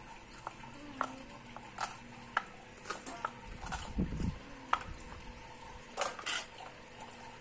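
Small kitchen knife cutting mustard greens on a wooden cutting board, with irregular short knocks about once a second. About six seconds in, the cut greens are pushed off the board into a steel bowl with a few quick scraping knocks.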